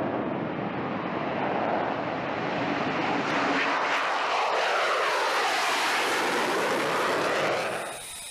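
Jet engine of an F-35 fighter flying low past: a loud, steady rush whose pitch sweeps down and then back up. It cuts off abruptly near the end.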